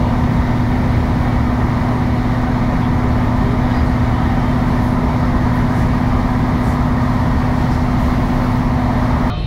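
Cabin noise of a Class 153 diesel railcar running at speed: a steady drone with a constant low hum. It cuts off abruptly near the end.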